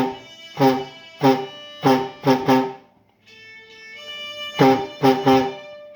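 Hymn music: sharp plucked chords struck about every two-thirds of a second. About three seconds in they stop for a moment while a steady held note sounds, then the chords resume.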